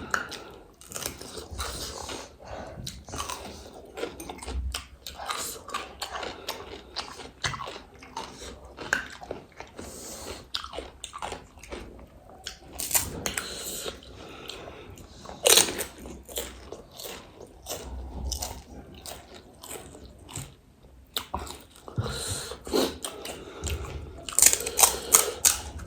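Close-up eating sounds: crisp pani puri shells and chatpate being bitten and chewed, with an irregular run of crunches, a few of them louder than the rest.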